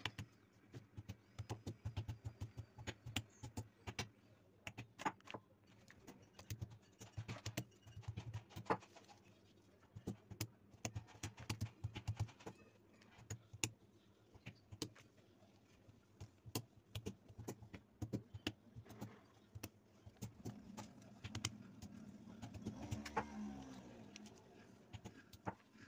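Green olives being cracked with a mortar's pestle on a plastic sheet: irregular knocks and dull thuds, with clicks and plastic rustling as the split olives are handled.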